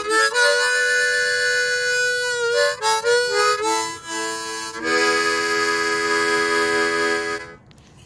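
Harmonica music: a short run of changing notes, then a long held chord from about five seconds in that stops sharply near the end.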